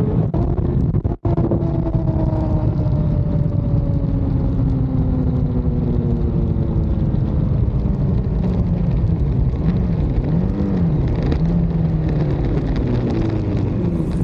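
Kawasaki ZX-10R inline-four sport bike slowing from high speed, its engine note falling steadily in pitch under heavy wind rush. About ten seconds in, the pitch wavers up and down a few times.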